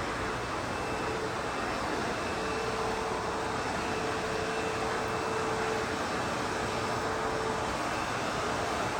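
ProTeam Super Coach backpack vacuum running steadily: an even rush of air with a motor hum that drops out and comes back several times.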